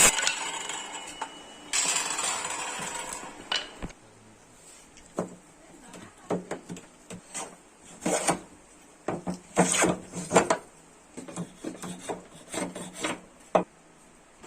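Short, irregular scraping strokes on wood, in quick clusters, as in hand work on a wooden marking gauge. A rush of noise fades away over the first couple of seconds.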